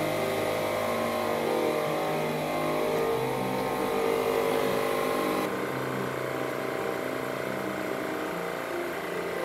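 Milwaukee M12 cordless tire inflator's compressor running steadily under load, pumping a truck tire from below 50 PSI toward 80 PSI. Its tone shifts a little a few times.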